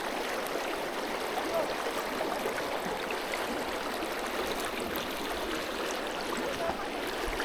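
Creek water running steadily over rocks, an even rushing sound.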